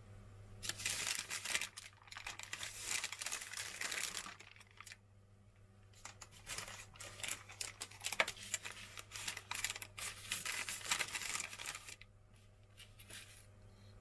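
Baking paper crinkling and rustling as the pastry on the baking tray is handled, in two long spells with a short pause between, over a low steady hum.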